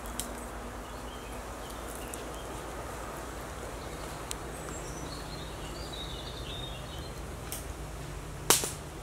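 Quiet woodland ambience: a steady soft background hiss with a few faint bird chirps in the middle, and one sharp click near the end.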